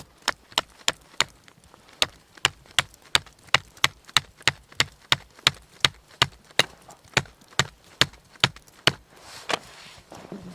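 Rapid, even chopping strikes on wood, about three sharp knocks a second, as small firewood is cut for a wood stove; they stop about nine seconds in.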